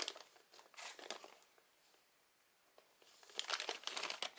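Plastic packaging crinkling in bursts as resin model-kit parts are handled: briefly at the start and about a second in, then louder and busier for the last second and a half.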